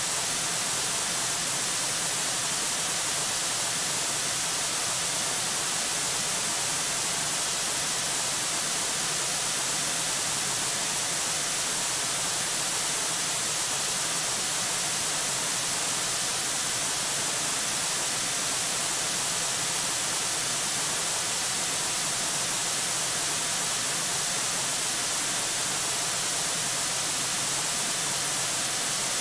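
Steady static hiss from a live-stream camera microphone, unchanging, with no bird calls or other events.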